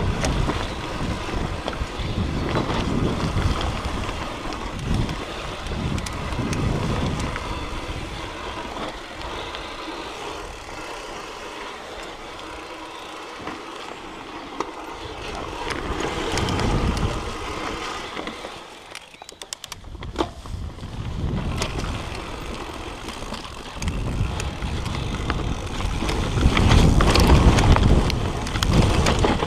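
Mountain bike riding a trail: tyre noise over the dirt and the bike's rattle, with wind on the camera microphone, swelling and easing with speed. It goes briefly quieter about two-thirds through, with a few sharp clicks.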